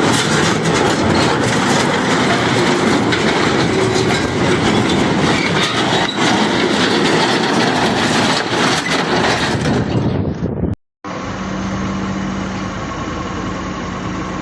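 Loud, steady mechanical rumble and clatter from heavy machinery. It cuts off abruptly about eleven seconds in, and a different recording with a steady low hum follows.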